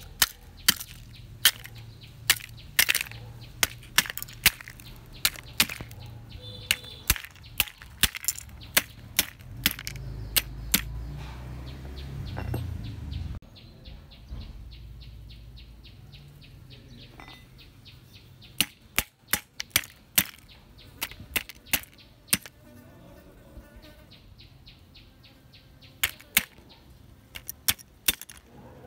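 A metal hammer tapping and cracking a rotting crab claw's shell, a series of sharp knocks that come thick in the first half, thin out in the middle and come again in short clusters later.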